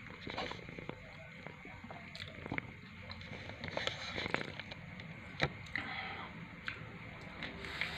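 A person chewing a slice of pizza, with scattered small clicks and crackles of mouth noise.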